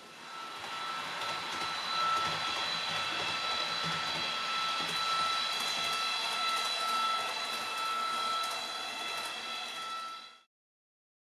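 PIKO ICE 4 H0 model train's sound decoder playing the high-speed train's electric running sound through its small speaker: a steady whine in several pitches over a hiss, swelling over the first couple of seconds. It cuts off suddenly near the end.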